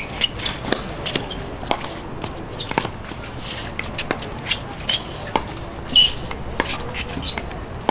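Pickleball rally at the net: paddles popping against the plastic ball in quick exchanges, a sharp crack about every half second.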